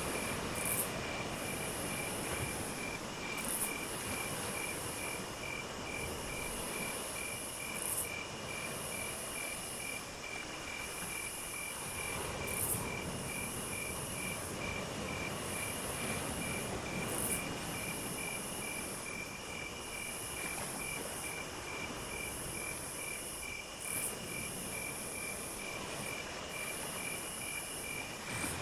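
Insects chirping: one keeps up a steady, rapidly pulsing chirp while a higher, thin buzzing trill repeats in phrases of about two seconds with short breaks between them, over a soft, even rushing background.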